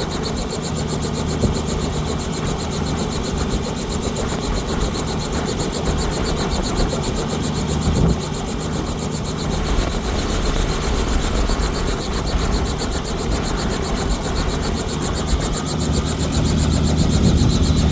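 Helicopter running on the ground at idle, a steady engine and rotor hum with a rapid, even beat.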